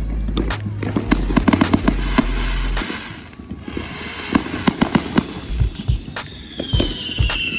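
Fireworks and firecrackers going off in quick succession, a rapid run of sharp bangs and crackles, over music with a heavy bass line that stops about three seconds in. Near the end a high whistle glides slowly downward in pitch.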